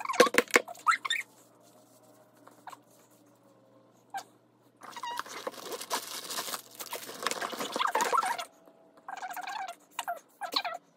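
Handling noise close to the microphone: hands rustling through long braided hair and fiddling with small items, with clicks, a long stretch of rustling in the middle and a few short squeaky sounds near the end.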